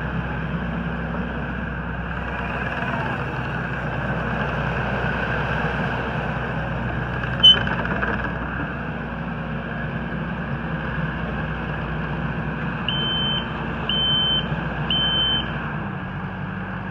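Kubota SVL90-2 compact track loader's diesel engine running steadily as the machine drives and turns, its pitch settling lower near the end. A single sharp chirp comes about halfway through, and three short beeps about a second apart come near the end from the machine's backup alarm.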